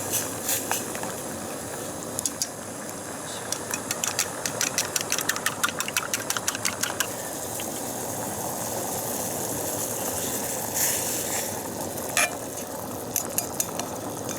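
A pot of noodle soup at a boil with a steady hiss, while a utensil stirs in freshly added garlic chives. It clinks against the pot in a quick run for a few seconds, with a few more clinks later.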